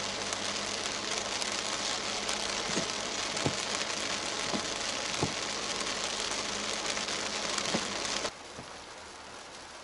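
Heavy rain falling on a car, heard from inside the cabin as a dense, even hiss with single heavy drops striking now and then. About eight seconds in it cuts suddenly to a quieter, steadier rain hiss.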